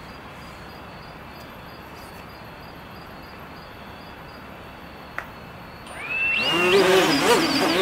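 A home-built tricopter's motors and propellers spin up about six seconds in: several rising whines that settle into a loud, steady buzz as it lifts off. Before that there is only a faint steady hiss, with a single click about five seconds in.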